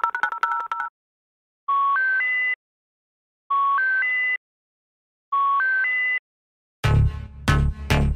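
A rapid two-tone electronic beeping that stops about a second in, then three identical sets of three rising electronic beeps, about two seconds apart, each with a faint low hum beneath. Electronic dance music with a heavy bass beat starts near the end.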